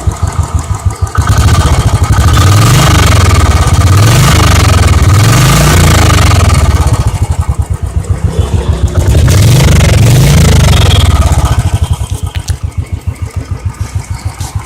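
Royal Enfield Electra's single-cylinder engine heard at the exhaust: a slow idle thump, then revved up and held for several seconds, eased off, revved a second time, and back to the idle thump near the end.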